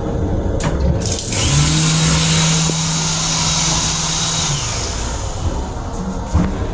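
Push-button faucet in a train restroom running: water streams into the sink basin from about a second in until near five seconds, with a steady hum alongside it for about three seconds, over the rumble of the moving railcar.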